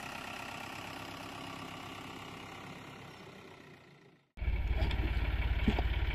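Tractor engine running, fading away over about four seconds into a brief silence. Then a tractor engine idling with an even low chugging comes in suddenly and louder.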